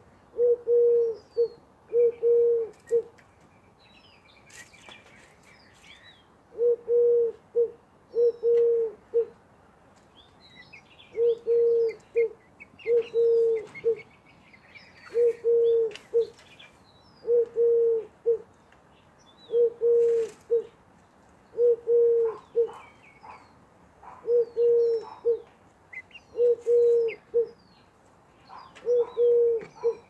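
Eurasian collared dove cooing its repeated call over and over, each low coo phrase about a second long and coming roughly every two seconds, with one gap of a few seconds after the first three. Other small birds chirp faintly behind it.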